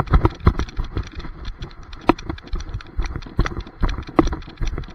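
Rapid, irregular thumps and knocks from a camera strapped to a running dog: its paws striking the lawn and the camera mount jostling, with a few louder knocks.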